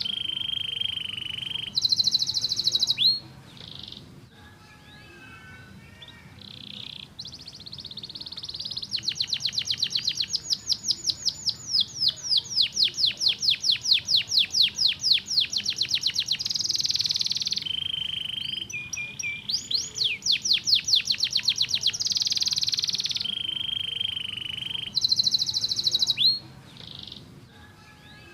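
Domestic canary singing a long, varied song of rapid rolls and trills, with a run of repeated sweeping notes at about four a second in the middle. The song goes quieter twice, once early on a few seconds in and again near the end.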